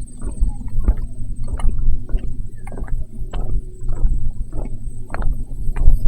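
Footsteps of a person walking at a steady pace, about ten steps, each a short scuff-thud, over a heavy low rumble on a chest-mounted microphone.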